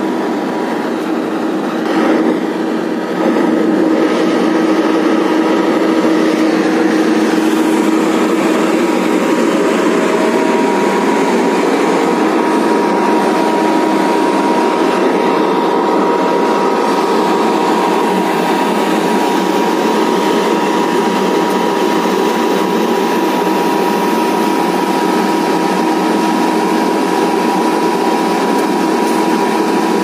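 Asphalt paver's diesel engine running steadily, a constant loud machine hum that rises a little about three seconds in.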